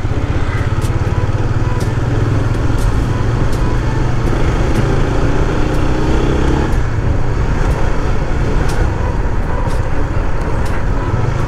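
Honda Winner 150's single-cylinder four-stroke engine running steadily while riding, with tyre and wind noise and light ticks now and then.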